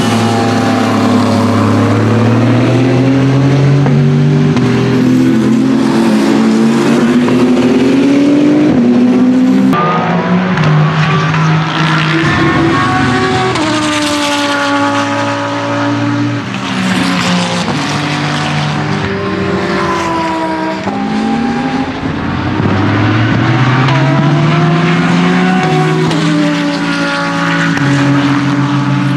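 Aston Martin Vantage GT3's twin-turbo V8 race engine at speed, its pitch climbing as it pulls through the gears, dropping at each upshift, and falling away as it slows. The sound changes suddenly about ten seconds in.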